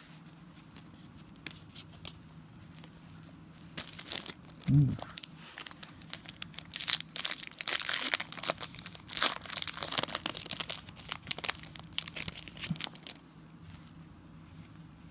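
Foil wrapper of a trading-card pack being torn open and crinkled by hand, in dense crackling starting about four seconds in and stopping near the end.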